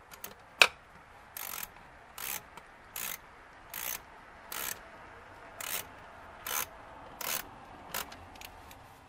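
Hand ratchet clicking in short runs, about one swing every three-quarters of a second, as a fastener is tightened. A single sharp click about half a second in is the loudest sound.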